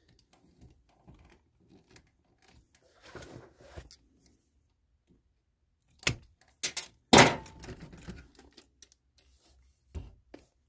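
Toner cartridge's hard plastic housing and its retaining pins clicking and knocking as the pins are worked out with a tool and the cartridge halves are pulled apart, with faint scraping, a sharp click about six seconds in and a loud snap just after.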